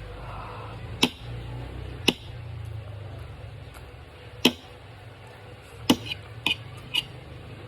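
Eating sounds close to the microphone: about seven sharp clicks and taps at uneven intervals, several bunched together near the end, over a low steady hum.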